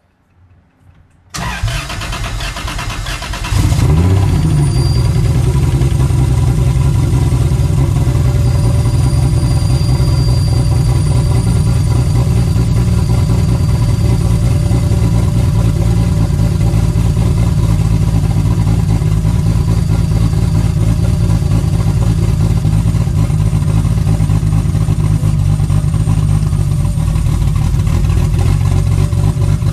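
Turbocharged Toyota 2JZ inline-six in a BMW E46 being cranked by the starter about a second in, catching about two seconds later, then idling steadily as it warms toward operating temperature.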